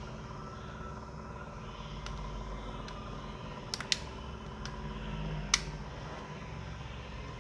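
A few sharp plastic clicks from a Nokia feature phone's housing being pried open by hand, a close pair about four seconds in and a louder single click about a second and a half later, over a steady low hum.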